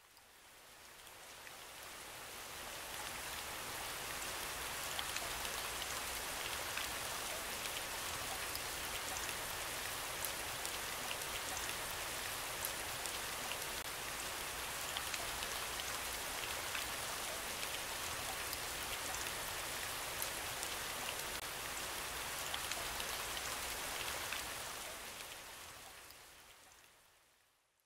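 Steady rain falling, with fine scattered drop taps through it; it fades in over the first few seconds and fades out over the last few.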